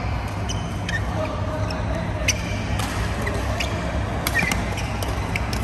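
Doubles badminton rally: sharp clicks of rackets hitting the shuttlecock, several in the second half, with a short shoe squeak on the court mat, over a steady low hum of the hall.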